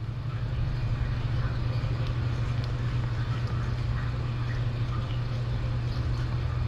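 Steady low hum over a constant hiss: the room tone of a kitten-room live-stream camera's microphone, with no clear animal or voice sounds.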